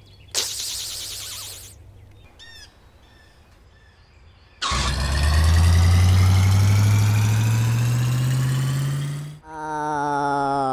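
Cartoon monster truck engine sound effect: after a short hiss-like burst and a few faint bird chirps, an engine starts about halfway in and revs up steadily, its pitch rising as the truck pulls away. Just before the end it gives way to a different, siren-like wailing tone.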